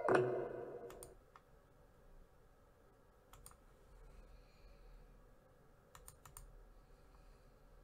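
The last sung note dies away in the first second, then a few faint clicks of a computer keyboard over a low room hum, three of them close together about six seconds in.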